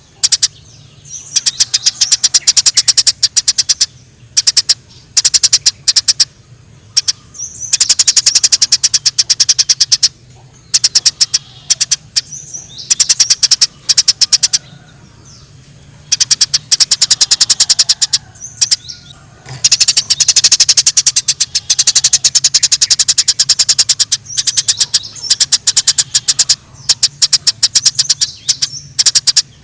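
Eurasian tree sparrows giving rapid, excited chirping chatter of the kind known as 'fighting' calls, about a dozen chirps a second. The chatter comes in bursts of one to four seconds with short pauses, over a faint steady low hum.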